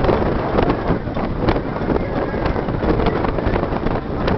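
Excursion boat MS Schwalbe II under way, its 163 hp engine running steadily with water noise, and wind buffeting the microphone.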